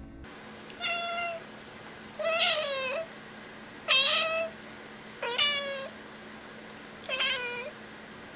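A domestic cat meowing five times, each meow about half a second long, spaced roughly a second and a half apart.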